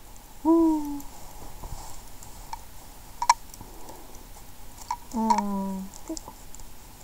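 A woman's short wordless hums, "hmm": one brief rising-and-falling hum about half a second in and a longer, lower, slightly falling one about five seconds in. A sharp click comes a little past three seconds in, with a few faint ticks of cloth being handled.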